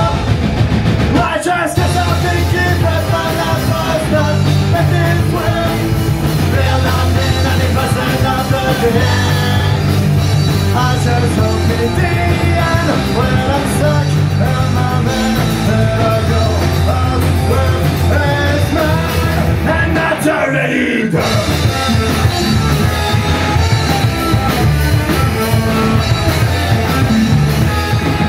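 Punk rock band playing live: distorted electric guitars, bass guitar and a drum kit, with a singer's voice over the top.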